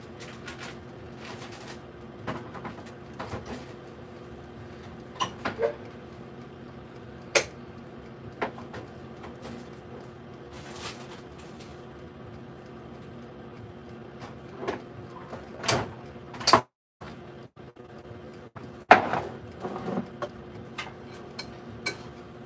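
Scattered knocks and clicks of kitchen cupboard doors and items being handled, over a steady low hum.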